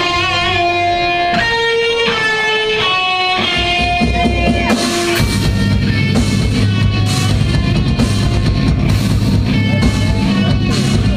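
Live metalcore band starting a song: an electric guitar picks single clean notes, then about five seconds in the full band comes in with drums and heavy guitars.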